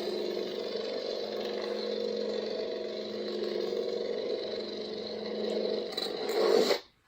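Lightsaber hum from a Proffie sound board in a NeoPixel saber: a steady electric buzzing hum that swells about six seconds in, then cuts off suddenly.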